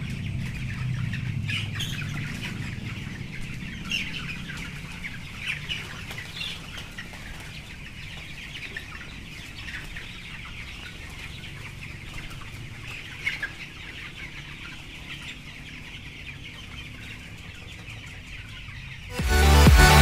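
A flock of broiler chickens calling, with scattered short high calls over a steady low hum. Loud electronic dance music cuts in near the end.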